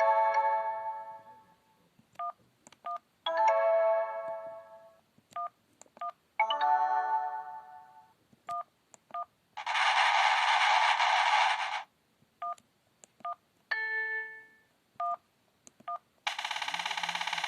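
A Sony Ericsson W200i's built-in sound effects playing one after another: pitched chimes that ring and fade, and two harsh buzzy blasts about two seconds long, the second starting near the end. Short two-tone key beeps come between them.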